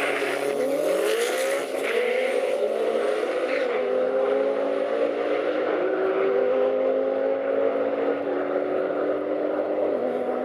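Drag-racing Honda Civic launching and accelerating hard down the quarter-mile strip. The engine climbs in pitch through each gear and drops back at each upshift.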